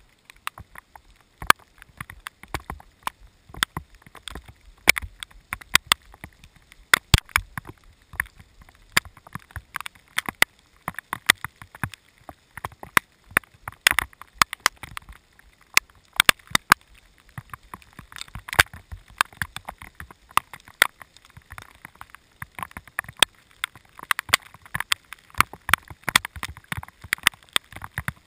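Raindrops striking the camera's housing in a thunderstorm: irregular sharp ticks and taps, several a second, over a faint hiss of rain.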